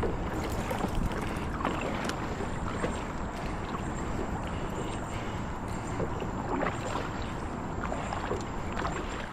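A kayak being paddled on a river: a steady rush of water noise with scattered small paddle splashes.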